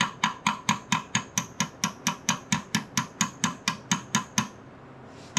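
Hammer tapping a shaft through the holes of a 1939 Ford transmission case, a steady run of about three metallic, ringing strikes a second. The strikes stop briefly about four and a half seconds in and start again near the end.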